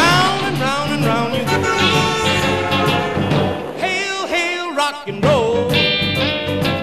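Upbeat 1950s rock and roll music playing, with a steady bouncing beat.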